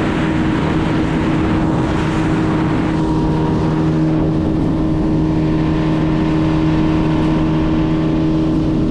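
Motorboat engine running at a steady speed, an even drone over the rush of the boat under way.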